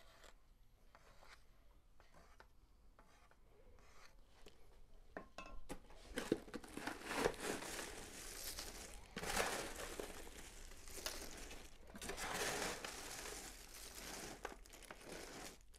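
Dry cereal, pretzels and nuts rustling and crunching as they are stirred and turned over with a spatula in a large stainless steel pan. The stirring starts about five seconds in and goes on unevenly, with scattered clicks.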